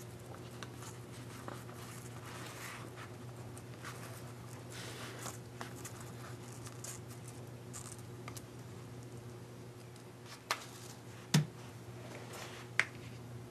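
Faint paper rustling and fingernail scratching as a vinyl decal sheet is picked at by hand and a layer is peeled up from it, over a steady low hum. Three sharp taps come near the end, the middle one the loudest.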